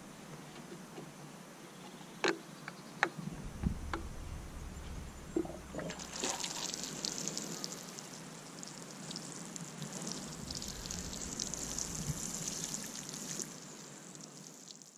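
Water showering from a plastic watering can's rose onto freshly laid compost: a steady hiss that sets in about six seconds in and fades near the end. A few light knocks come before it.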